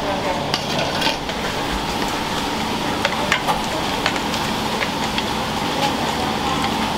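Working ramen shop kitchen: a steady wash of cooking noise, with sizzling or bubbling and short clinks and knocks of utensils and dishes scattered through it, a few close together about three seconds in.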